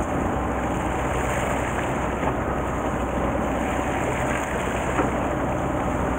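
Fishing boat's engine running steadily at low revs, a low hum under the wash of sea water along the hull.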